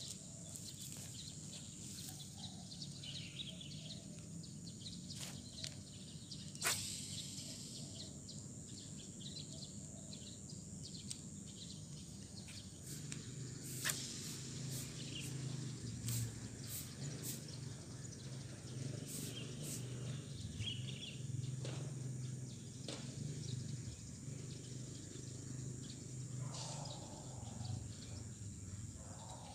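Outdoor ambience: a steady low hum of city traffic and a thin high hiss, with short bird chirps and a few sharp clicks, the loudest about a third of the way in and near the middle.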